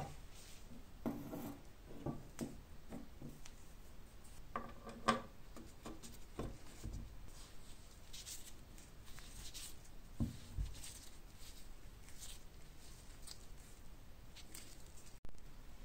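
Scattered light knocks, clicks and rubbing of steel scythe parts and bolts handled on a wooden workbench as a metal bracket is fitted onto the handle, with a few sharper knocks about a second in, around five seconds and twice near ten seconds.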